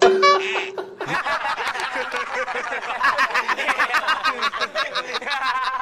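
A brief steady tone in the first second, then a group of men laughing hard together.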